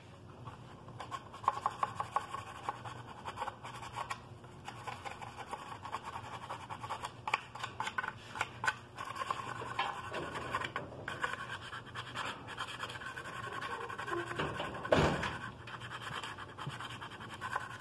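Hand-sanding a cracked black plastic motorcycle body panel from an Italika 125Z with a sheet of sandpaper: quick, repeated rasping strokes that roughen the plastic so the fiberglass repair will bond. About fifteen seconds in there is one louder knock.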